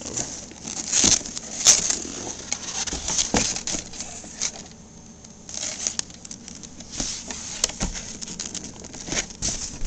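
A cardboard box being opened and handled: irregular rustling and scraping of cardboard, with scattered knocks and taps.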